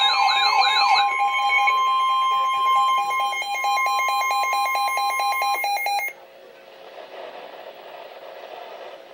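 Emergency alert tones. A fast up-and-down wailing tone gives way about a second in to steady alert tones with a rapid pulsing beep, which cut off suddenly about six seconds in, leaving only low background noise.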